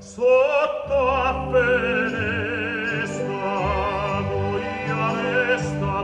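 Operatic voice singing with strong vibrato over orchestral accompaniment, played back through a tube hi-fi amplifier. A new phrase enters sharply just after the start, after a brief dip.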